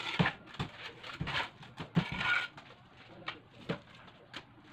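Irregular knocks and scrapes of hand tools on tile and cement, several a second and unevenly spaced.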